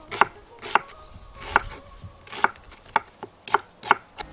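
Pchak knife slicing an onion into half-rings, each stroke ending in a sharp knock on an end-grain wooden cutting board: about eight cuts, roughly two a second, unevenly spaced.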